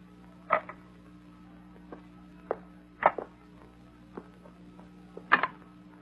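Short, sharp knocks, about ten at uneven spacing, the loudest coming near the start, in the middle and near the end, over a faint steady hum.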